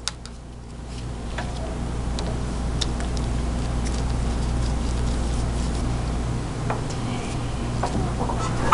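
Small plastic pipe valves and fittings ticking and clicking as they are handled and screwed together, with a sharper click near the end, over a steady low hum.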